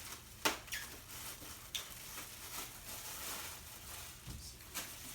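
Gift packaging being handled: rustling and crinkling with a few sharp snaps, about half a second in, near two seconds in and near the end.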